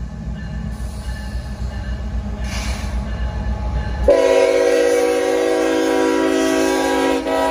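Approaching CSX coal train: low rumble of the lead diesel locomotive and its wheels, then about four seconds in the locomotive's air horn sounds one long, loud chord of several notes that cuts off just before the end.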